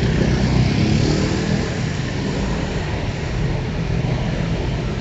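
Motor scooter engine passing close in street traffic, loudest and shifting in pitch over the first couple of seconds. Under it runs a steady haze of traffic and tyre noise on a wet road.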